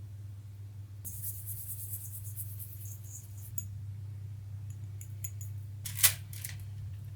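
Kitchen cooking sounds over a steady low hum: a run of quick, high-pitched crackling, then scattered clicks and one sharp clink of metal or glass about six seconds in.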